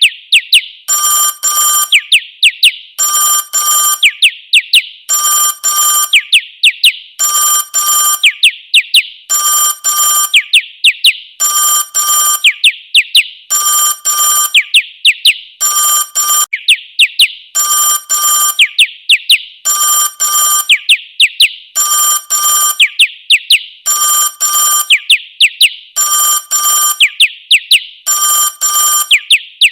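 A loud ringtone that mixes an old-style telephone ring with bird chirps. A short double ring alternates with a quick run of chirps, repeating about every two seconds.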